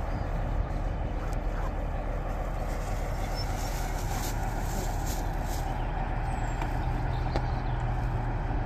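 Diesel locomotive engine running steadily as the train moves slowly, with a low hum that strengthens about two-thirds of the way through and a few short hisses of air around the middle.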